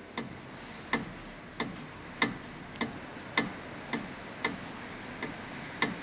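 A string of sharp clicks, about one and a half a second, from a Jeep's front tie rod end as the linkage is worked, which the owner takes for the tie rod's ball end rotating on its ball.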